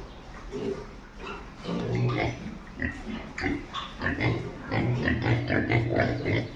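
Several pigs grunting, short overlapping grunts that come thicker and louder from about four seconds in.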